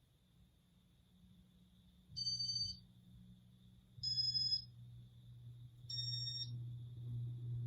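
Three short electronic beeps about two seconds apart from a Casablanca Inteli-Touch fan control. After each beep the fan motor's low hum steps up and grows louder.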